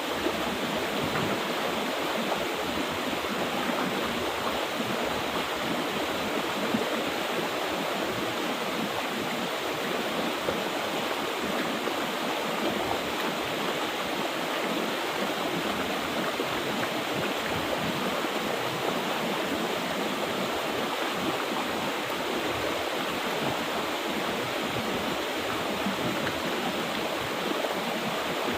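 Mountain river water rushing and splashing over rocks in a steady, unbroken flow.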